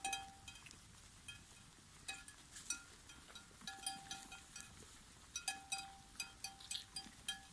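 Bells on grazing sheep clinking and ringing irregularly as the flock moves, several short metallic rings a second with gaps between.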